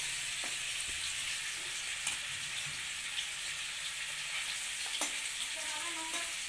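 Paneer frying in hot oil: a steady sizzle with a few short clicks.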